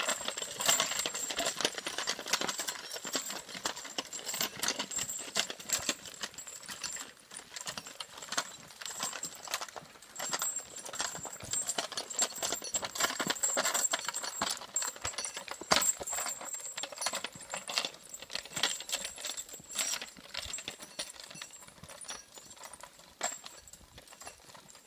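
Draft horse walking on a dirt woodland track while dragging a log: a dense run of clip-clopping, clinking harness and gear, and scraping and crackling from the load, growing fainter as the horse moves away.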